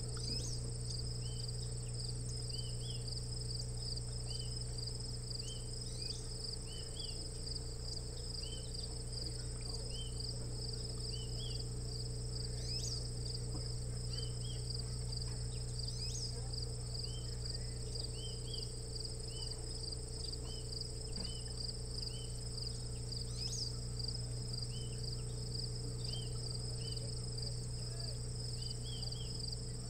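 A steady chorus of crickets, a shrill high trill pulsing without a break, with short high chirps scattered through it. A constant low hum runs underneath.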